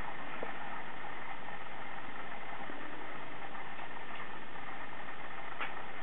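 Steady hum or hiss with a few faint clicks.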